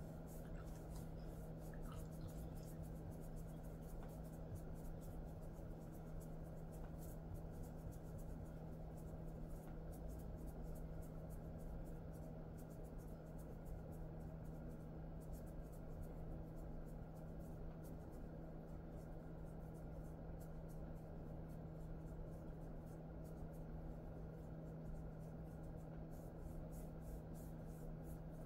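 Fingers scratching and rubbing a Jindo dog's fur during a massage: a faint, irregular scratchy rustle. Under it runs a steady low hum.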